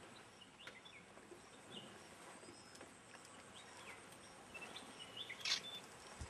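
Faint, scattered bird chirps and short whistles, some rising in pitch, over a quiet background hiss, with a sharper chirp about five and a half seconds in.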